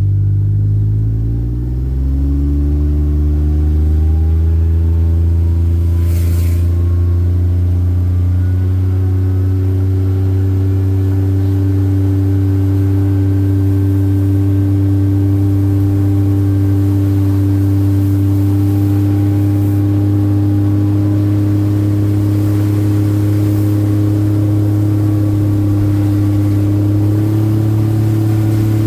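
A road vehicle's engine picking up speed over the first two or three seconds, its pitch rising, then running at a steady pitch with a slight rise near the end. A brief hiss about six seconds in.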